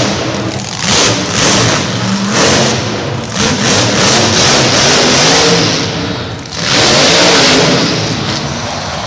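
Grave Digger monster truck's supercharged V8 engine revving hard in repeated surges as it drives the dirt course, then a long full-throttle blast about seven seconds in as the truck rears up onto its back wheels.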